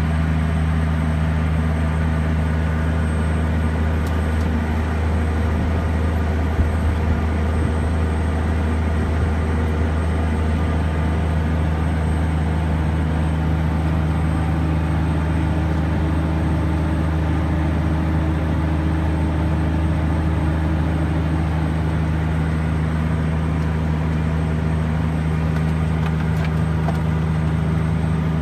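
Case IH STX535 Quadtrac's diesel engine running steadily under load, heard inside the cab as a constant low drone, while the tractor pulls a 76-foot Bourgault 3320 air drill.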